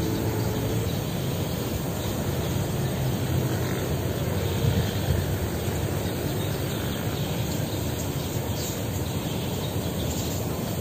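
Steady low rumble of outdoor background noise, with a faint short tone just after the start and again about four seconds in.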